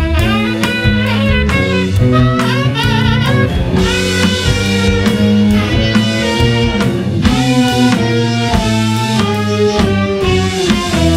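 A small band playing a groove-based tune: saxophones holding and bending notes over an electric bass line and a drum kit.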